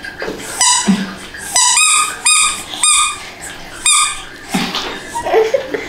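Labrador dog whining: about five short, high-pitched cries in quick succession, from a dog that is being bathed.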